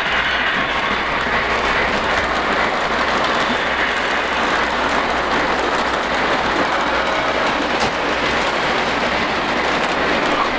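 Lionel O-gauge model trains running on FasTrack: a steady rolling rumble and clatter of wheels over the track, with a low steady hum underneath.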